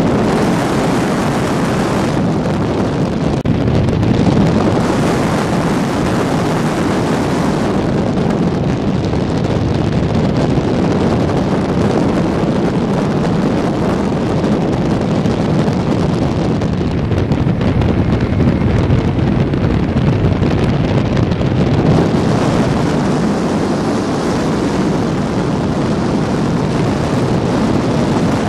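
Steady wind rush over a helmet-mounted camera microphone on a moving motorcycle, with the 1985 Honda CB650SC Nighthawk's air-cooled inline-four engine running under it.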